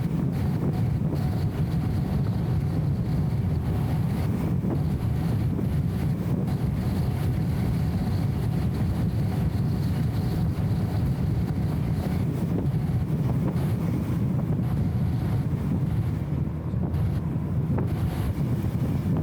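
Steady low drone of a BMW E34 M5 Touring cruising: its 3.8-litre straight-six and road noise, dulled and flattened by the camera's wind-noise filter.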